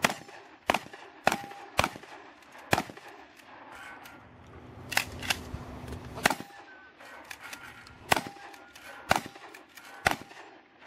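Two 12-gauge shotguns, a Remington 870 pump and a Saiga 12 semi-auto, fired as fast as the shooters can in a head-to-head race: about ten shots at uneven spacing, several in quick pairs, with smaller clicks in between.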